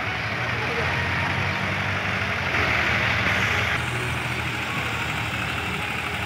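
Several New Holland diesel tractor engines running together as the tractors drag blades and ploughs through the soil: a steady low engine sound with a brief louder stretch in the middle.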